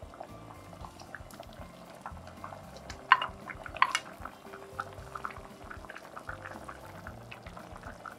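Spicy gochujang stew bubbling at a boil in a stainless steel pot, with a steady scatter of small pops. Two sharp clicks sound about three and four seconds in.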